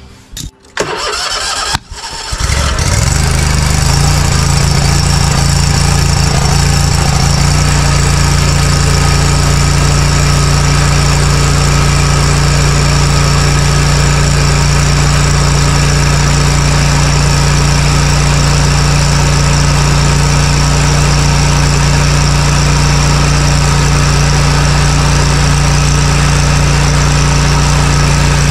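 A riding mower's V-twin engine is cranked by its starter in a few short bursts, catches about two seconds in, and then runs steadily, settling at a slightly higher speed several seconds later.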